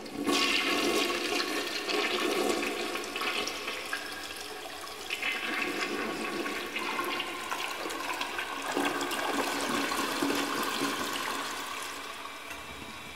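Toilet flushing: a sudden rush of gurgling water that slowly drains away, fading out near the end.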